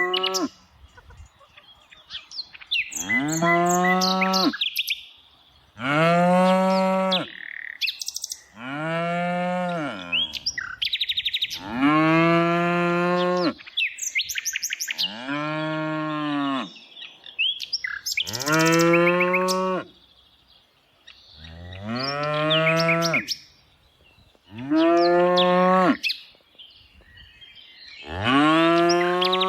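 Cattle mooing over and over: about ten long moos, roughly one every three seconds, each rising slightly in pitch and then falling away. Faint bird chirps sound in the gaps.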